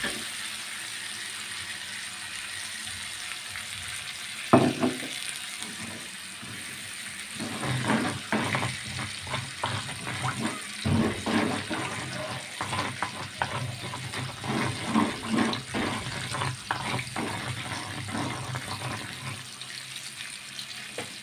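Chili sambal paste sizzling as it is sautéed in a pan. A single sharp knock of the spatula comes about four and a half seconds in, then a long run of quick stirring and scraping strokes until near the end.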